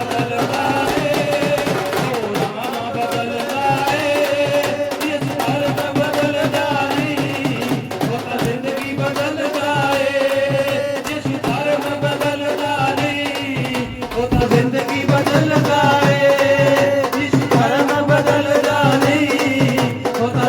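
Hindi Christian worship song: a melody in long held notes over a steady hand-drum beat.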